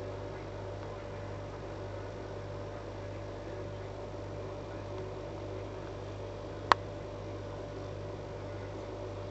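Steady low electrical hum with a fainter higher tone over it, and one sharp click about seven seconds in.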